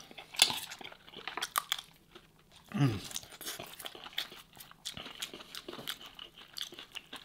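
Close-up eating sounds: crispy roast lamb skin and fat crackling and crunching as they are torn apart by hand and chewed, with many small clicks and crackles.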